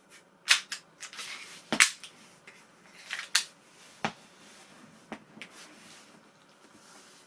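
Action Army AAP-01 airsoft pistol being worked by hand: the bolt is pulled back and released and the fire selector is flipped, giving a series of sharp metallic clicks and clacks, the loudest just under two seconds in.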